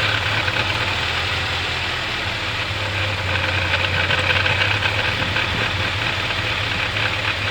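Mercedes-Benz 200TE's four-cylinder petrol engine idling roughly, with a steady low hum and a fast, fine clattering over it.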